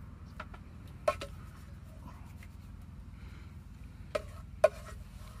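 Plastic serving spoon knocking against a pan and plastic plates while peas are spooned out: a few short sharp clicks, a loud one about a second in and two more near the end.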